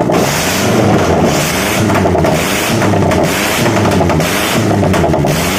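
Mitsubishi Pickup SS petrol engine, out of the truck and running on the ground, revved up and down several times. It is being test-run after a valve adjustment and carburettor cleaning.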